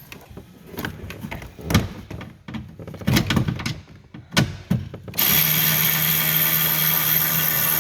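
Knocks and clicks of tool handling, then about five seconds in a cordless screw gun starts and runs at a steady speed, backing out the 7mm screw that holds the truck's front door speaker.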